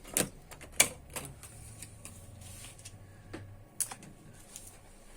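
Scattered sharp clicks and knocks of small tools and computer parts being picked up and gathered on a workbench, with a low hum for a couple of seconds in the middle.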